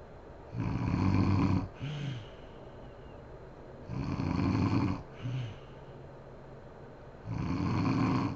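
A woman snoring in her sleep: three loud snores, about three seconds apart, each followed by a brief, lower sound that falls in pitch.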